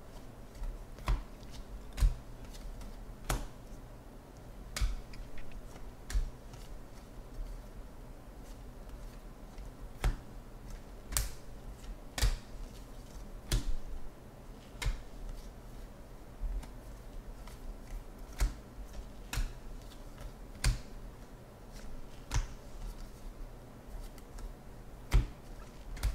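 Bowman baseball cards being flicked one at a time from the front to the back of a hand-held stack, each card giving a sharp snap, roughly one a second at an uneven pace.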